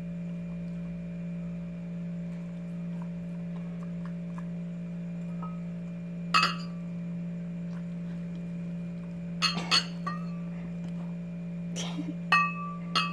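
Durian seeds dropped into a glazed ceramic bowl, making a handful of sharp clinks that each ring briefly. The first comes about six seconds in and the rest bunch together in the last few seconds. A steady low hum runs underneath.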